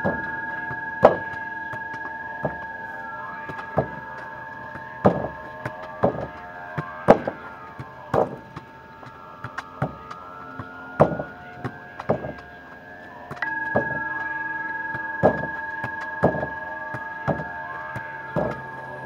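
A soccer ball being struck and banging off wooden wall boards, sharp thuds roughly once a second, over background music of long held chords.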